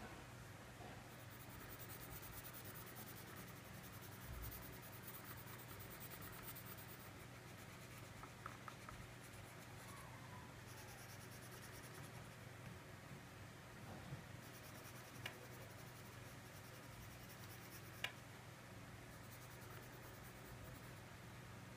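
Faint scratching and rubbing of a dark wax crayon on paper as an area is shaded in with steady strokes, with two small sharp clicks in the second half.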